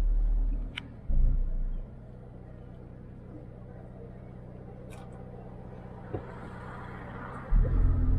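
Car driving with its engine humming steadily, interrupted by loud low rumbles in the first two seconds and again near the end. There are a couple of brief clicks, about a second in and about five seconds in.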